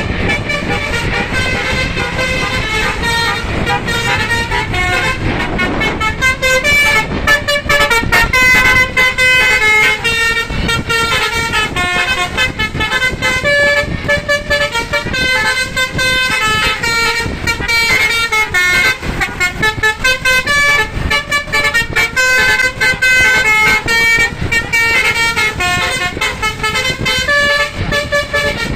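Telolet 'basuri' musical bus horns playing a fast melody of short stepped notes over road and engine noise, louder and clearer from about six seconds in.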